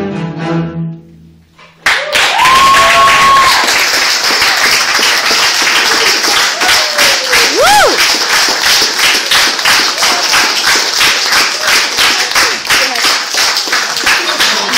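Bowed double basses sound their last notes and stop. About two seconds in, a small audience breaks into loud applause and cheering, with a held shout and a rising-and-falling whoop among the clapping.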